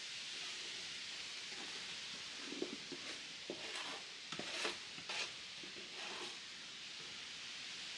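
A string of short scrapes and knocks, bunched between about two and six seconds in, over a steady hiss.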